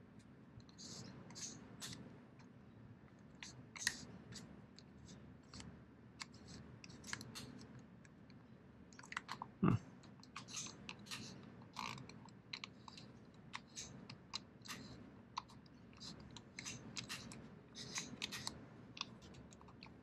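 Small plastic clicks and taps of fingers working a charger's rotary timer switch as it is put back together. The clicks are irregular and scattered, with one sharper knock about ten seconds in.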